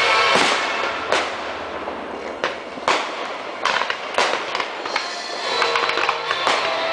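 Fireworks going off: several sharp bangs with crackling, irregularly spaced, over music playing.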